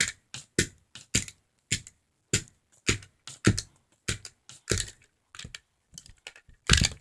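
Repeated sharp smacks of a whipping, about two a second, with fainter taps between them and a louder smack near the end.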